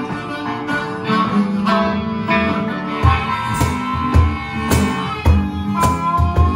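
Live blues trio: harmonica played into a handheld microphone, with long held notes over a hollow-body electric guitar, and a cajón beat of low thumps and sharp slaps that joins in about three seconds in.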